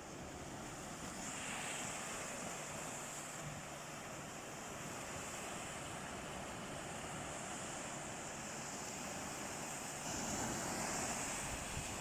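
Sea surf washing on the shore, a steady rush of water that swells as a wave comes in about a second in and again near the end.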